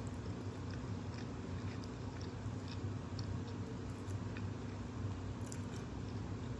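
A person chewing a mouthful of Singapore mei fun rice noodles, with faint small mouth clicks, over a steady low hum.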